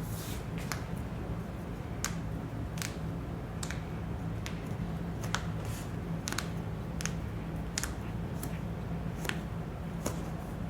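A series of sharp clicks, roughly one a second, over a steady low hum.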